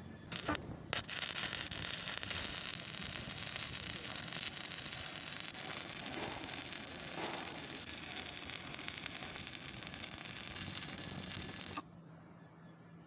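Stick-welding arc on a 6013 electrode: two short crackles as the arc is struck, then a steady crackling sizzle that cuts off suddenly near the end when the arc is broken.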